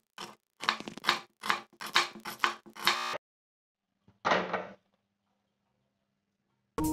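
Kitchen knife slicing a red onion on a wooden chopping board: about eight quick chops in three seconds, each a knock of the blade on the board. After a short gap, a brief noisy rasp from an aluminium pressure cooker on a gas stove being handled.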